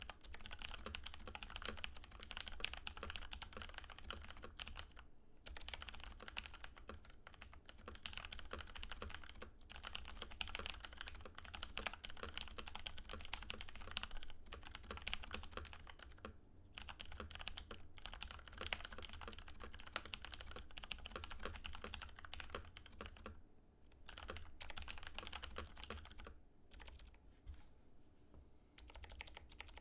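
Typing on a Filco Majestouch 2 tenkeyless mechanical keyboard fitted with lubed, stickered 67 g Cherry MX Clear tactile switches, lubed Costar stabilizers and dye-sub PBT keycaps. A fast, dense run of keystrokes, broken by brief pauses every few seconds and thinning out near the end.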